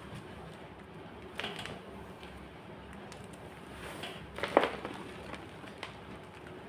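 White gym chalk crunching as it is crushed, a few separate crunches with the loudest about four and a half seconds in.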